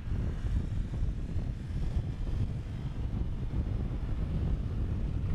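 Wind buffeting the microphone: a steady, gusty low rumble with no distinct tones.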